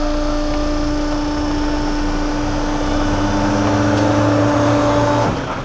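Tobacco baling press running with a steady mechanical hum while it compresses tobacco into a bale box. A deeper, louder hum joins about three seconds in, and the machine cuts off suddenly near the end.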